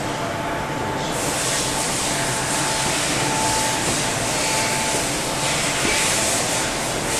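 KBA Rapida 105 four-colour sheetfed offset press with coater running: a steady machine drone with a constant whine and a hiss that grows louder about a second in.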